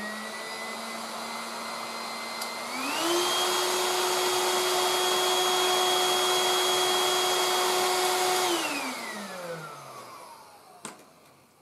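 Tefal Dual Force TY6751 cordless stick vacuum running on its lower power setting. About three seconds in it is switched to the higher setting, and its whine steps up in pitch and loudness. After about five seconds at high power it is switched off, and the motor whine falls away as it spins down, followed by a light click.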